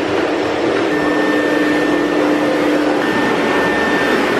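Canister vacuum cleaner running steadily, a motor whine over a loud rush of air, its tone shifting slightly about a second in and again about three seconds in.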